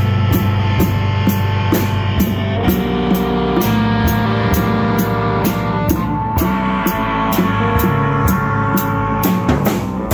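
Live rock band playing: multi-string electric bass, electric guitar and drum kit, with an even beat of cymbal strikes about three a second.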